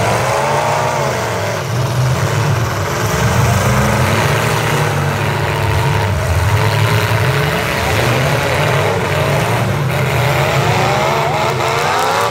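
Demolition-derby pickup trucks' engines revving hard and unevenly as they push and ram each other, the revs climbing again near the end.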